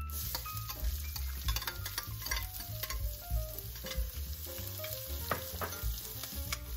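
Chopped onion hitting hot oil with cumin and mustard seeds in an enamelled pot: a steady sizzle that starts right at the beginning, with a metal spoon clicking and scraping as it is stirred in.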